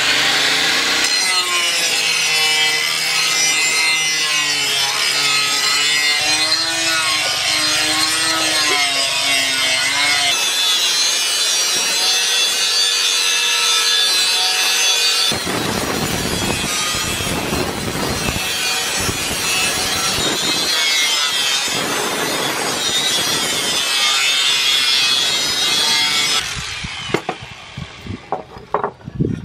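Electric angle grinder with a sanding disc grinding and polishing a steel knife blade forged from leaf spring, the motor's whine wavering in pitch as the disc is pressed onto the steel. The grinding stops near the end, leaving a few light knocks.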